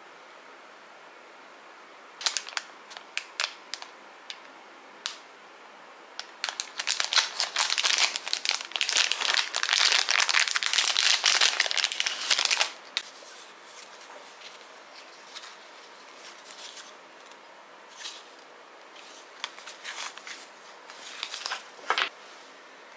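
Thin plastic packaging crinkling as it is handled and opened by hand, dense and loudest for about six seconds in the middle, with scattered lighter rustles and clicks before and after.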